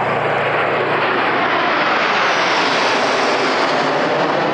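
Red Arrows' BAE Hawk T1 jets, with Adour turbofan engines, passing over in close formation: a loud, rushing jet noise that swells to its fullest about two to three seconds in, then eases slightly.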